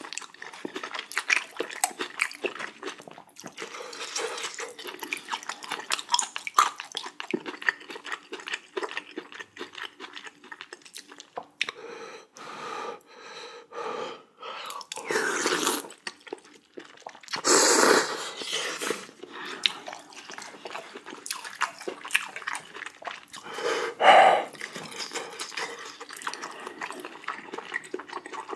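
Close-up eating sounds of spicy jjamppong soup with rice and kimchi: steady wet chewing with many small crunches and clicks, broken by three longer, louder slurps about halfway through and later on.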